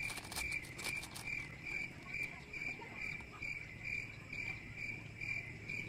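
Insect chirping steadily outdoors, an even high chirp repeating about twice a second, with a few faint clicks in the first second.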